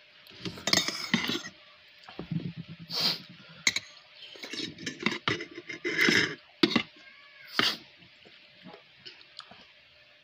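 Noodles being eaten: slurping and chewing, with a metal fork clinking sharply against a ceramic bowl several times.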